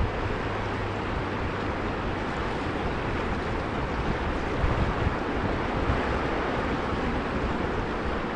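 Steady rush of river water running fast over shallow stones, with wind buffeting the microphone.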